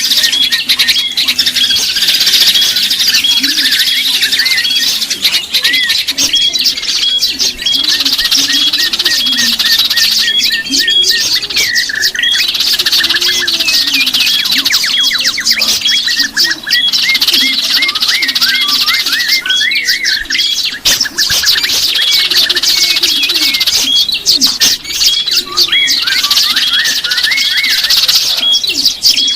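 Many small songbirds chirping and twittering at once in a dense, continuous chorus of rapid high notes and short rising and falling whistles, with lower calls underneath.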